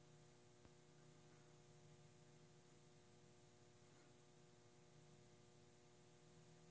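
Near silence: room tone with a faint steady hum and hiss, and one faint click less than a second in.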